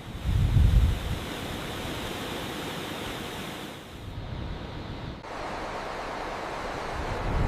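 Steady rushing noise of wind and sea, with a low rumble of wind buffeting the microphone in the first second.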